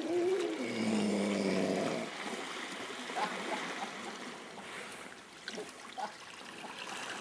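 Grey seal giving one low, snore-like call of about two seconds that drops in pitch and then holds. Water laps against the rocks afterwards, with a few faint knocks.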